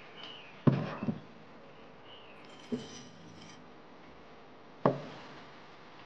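Tea utensils handled on a wooden table: a few sharp knocks and clinks, a quick cluster about a second in, a lighter one in the middle and a loud one near the end, with a brief soft rustle between them.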